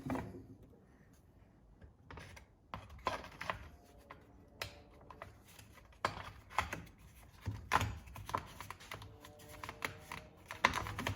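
Irregular clicks and knocks of plastic engine housing parts and screws being handled and fitted back together on a small two-stroke power head during reassembly.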